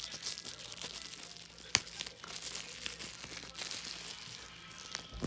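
Bubble wrap crinkling and rustling as it is handled and pulled off a boxed radio, with one sharp snap about two seconds in.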